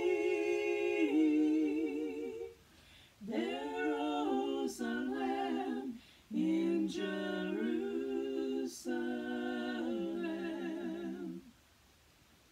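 Female trio singing a cappella in harmony: a wordless passage of held notes in several phrases with short breaks between them, stopping a second or so before the end.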